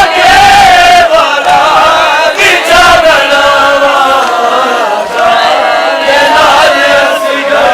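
A group of mourners chanting a noha (Muharram lament) together, several voices sustaining a melodic chant.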